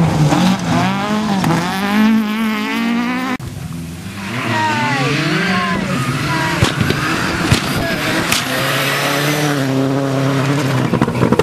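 Rally car engines at full throttle, the pitch climbing and dropping again and again through gear changes as the cars pass at speed. The sound cuts abruptly to a second car about three and a half seconds in.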